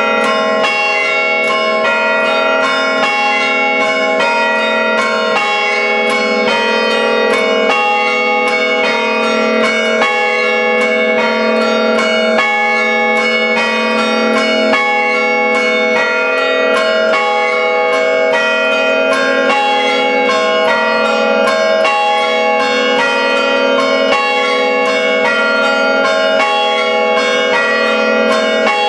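Five-bell church-tower chime, the bells struck by hand through rope pulls in a quick, steady rhythm of several strokes a second. The strokes overlap into continuous ringing.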